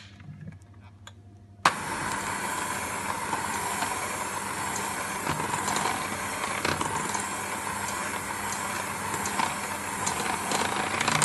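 Electric hand mixer switched on about two seconds in, then running steadily, its wire beaters churning cake batter against a stainless steel bowl.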